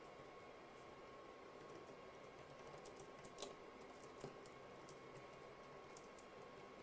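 Faint, irregular key clicks from typing on an Anker Ultra-Slim Bluetooth keyboard, with a couple of sharper key presses near the middle, over a faint steady tone.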